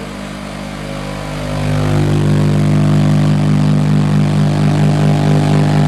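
Car-audio SPL burp from two Sundown 18-inch subwoofers: a steady low bass tone that swells up about a second and a half in, then holds loud and even.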